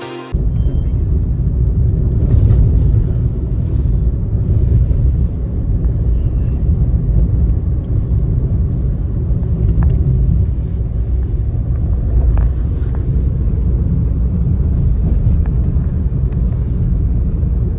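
Low, steady rumble of a vehicle travelling along a road: road and wind noise picked up on the move. It starts about a third of a second in, as background music cuts off.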